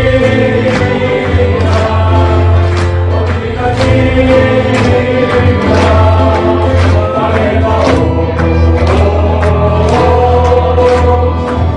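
A men's group singing a gospel praise song with band backing: a strong bass line and regular drum hits keep a steady beat under the voices.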